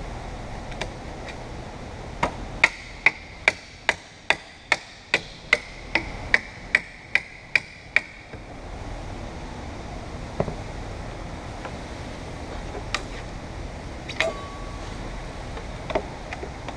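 Hammer tapping steadily on a metal tool, about fifteen quick blows at roughly two and a half a second, each with a short metallic ring, while working a car's roof glass loose from its urethane bond. A few scattered clicks and a brief thin squeak follow near the end.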